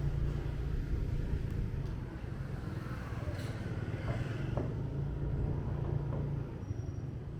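Motorbike engine running steadily while riding, with road and traffic noise around it.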